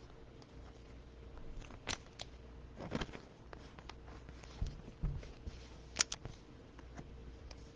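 Quiet handling of trading cards and their packaging: a few scattered clicks and rustles, and two soft thumps as cards are set down.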